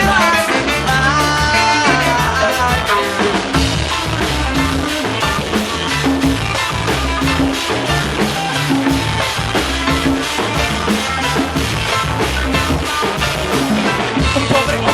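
Reggae band playing an instrumental passage: a steady beat on drum kit and bass, with a gliding lead melody over the first few seconds.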